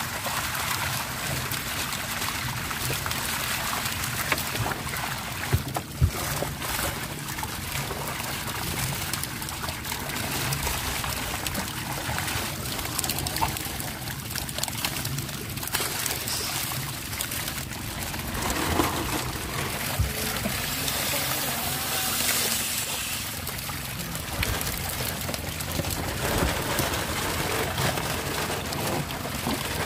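Water splashing and churning steadily as a dense mass of common carp thrash at the surface, crowded in a drawn-up floating net cage during harvest. There are a few sharp knocks about five or six seconds in, and a brief hiss about two-thirds of the way through.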